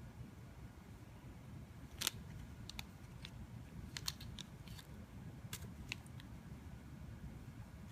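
A scattered series of short, sharp clicks and ticks, the loudest about two seconds in, over a faint steady low rumble.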